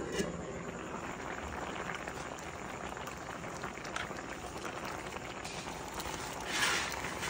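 Coconut milk boiling hard in a wok, a steady bubbling throughout. A brief knock right at the start as the lid comes off, and a louder rush of noise near the end as raw shrimp are tipped into the pot.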